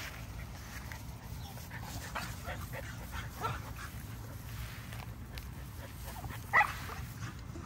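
Two puppies play-fighting, with faint whimpers and one short, loud bark about six and a half seconds in.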